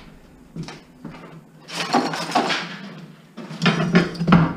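Steel crowbar scraping and chipping ceramic floor tile off a wood subfloor, with broken tile pieces clinking. A stretch of scraping comes about two seconds in, and several sharp knocks near the end.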